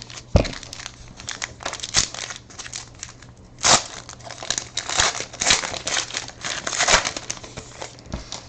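A football trading card pack's wrapper being torn open and crinkled by hand, with irregular crackling that is loudest in the middle of the stretch.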